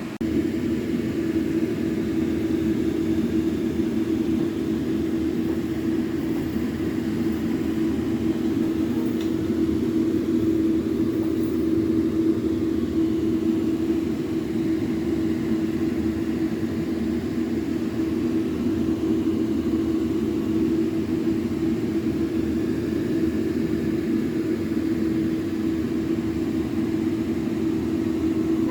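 A steady mechanical hum with one low droning tone and a rumble under it, unchanging throughout.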